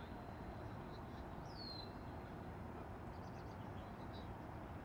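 A bird calling: one clear high whistle sliding downward about a second and a half in, with a few faint short chirps later, over a steady low background hiss and rumble of outdoor noise.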